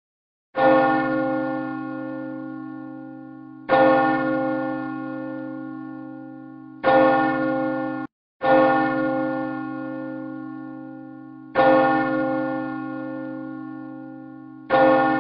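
Church bell struck six times, mostly about three seconds apart, each stroke ringing on and slowly fading with a wavering hum. One ring cuts off abruptly just before the next stroke, about eight seconds in.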